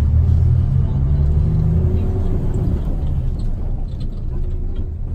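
Bus engine running with a steady low drone, heard from inside the cabin; its note eases off about three seconds in.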